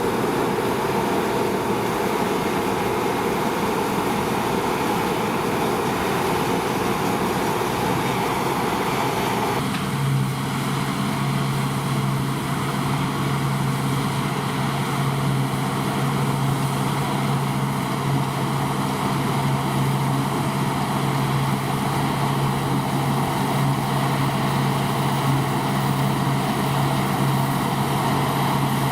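Deutz-Fahr 5690 HTS combine harvester running steadily in a continuous mechanical drone; about ten seconds in, the sound shifts abruptly to a deeper, steadier hum.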